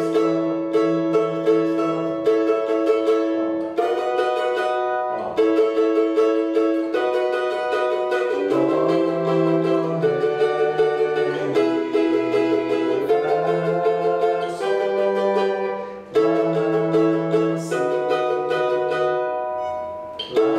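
Cavaquinho strummed continuously in a quick, even rhythm, the chord changing every second or two.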